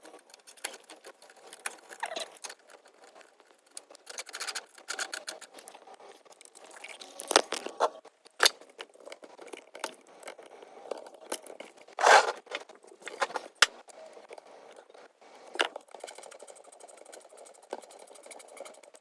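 Hand tools and metal engine parts clinking and clattering as the engine is put back together after a spark plug change, with a run of rapid, even ratchet-like clicks near the end.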